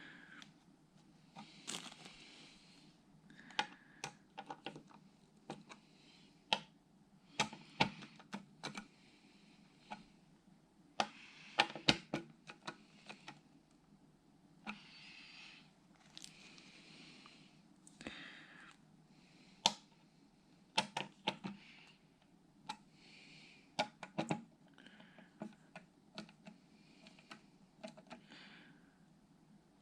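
Irregular clicks, taps and short scrapes of computer hardware being handled and fitted by hand, metal and plastic parts knocking and sliding against each other.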